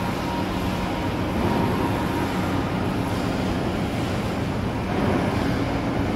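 Steady din of a metalworking shop floor with CNC machines running: a constant mechanical noise with a low hum under it, level throughout.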